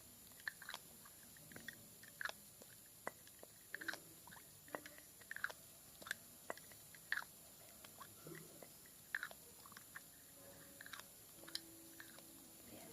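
Slow, irregular soft clicks and pops close to the microphone, one or two a second, from ASMR tapping and drip-like sounds.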